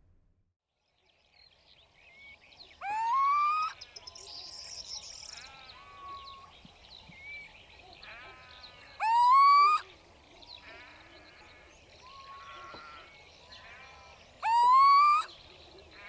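Little owl (Athene noctua) singing its territorial song: three loud, rising hoots, each just under a second long and about six seconds apart, with fainter, shorter calls in between.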